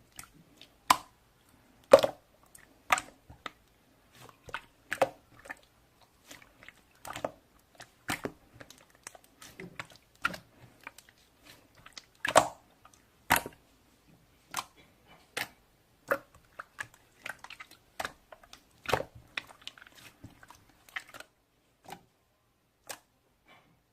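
Slime being squished and pulled by hand, giving a series of sharp, sticky pops and clicks at an irregular pace, about one or two a second.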